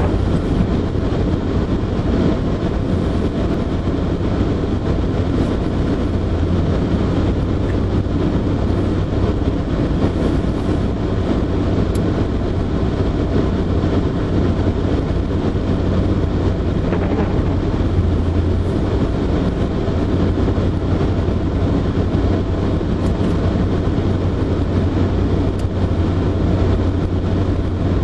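Freight train running, a steady noise with a constant low hum underneath.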